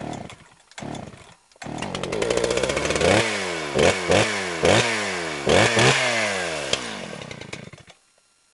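Two-stroke chainsaw engine: a few short sputters, then it catches and runs, revved hard several times with the pitch falling away after each blip, and stops near the end.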